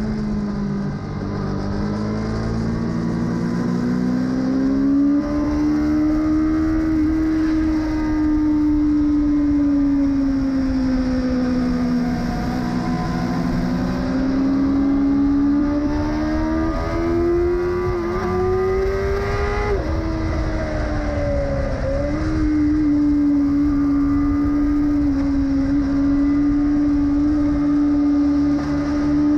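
Yamaha R6 inline-four sportbike engine running under load on track, its pitch rising and falling gently with throttle and speed, over wind rush. The engine is firing on only three of its four cylinders.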